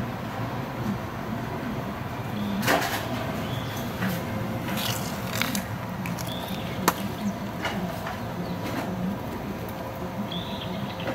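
Outdoor ambience with a steady low hum, small bird chirps a few times, and several sharp clicks or taps scattered through it.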